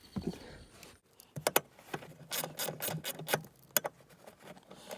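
Socket ratchet clicking in short, uneven runs while backing out an 8 mm screw.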